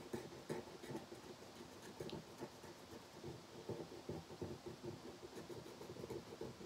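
Faint, irregular scratching of a marker being rubbed back and forth over a velvet coloring poster as an area is coloured in.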